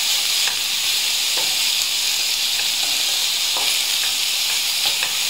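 Crumbled longaniza sausage sizzling steadily in a frying pan as it cooks and gives off its juices, with a few light scrapes of a knife being stirred through it.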